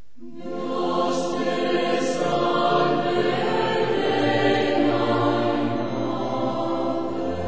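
Choral music, with voices holding long sustained notes; it swells in during the first second.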